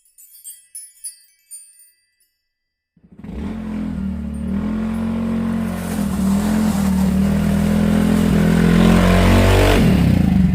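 A few light tinkling chimes, then after a short pause a motorbike engine running, growing louder as it approaches and cutting off shortly before the end.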